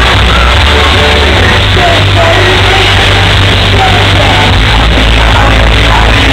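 A live pop-rock band playing a song loudly through a concert PA, heard from inside the crowd, with a singer's melody over it. The recording is loud and muffled, with no clear treble, as from a low-quality camera microphone.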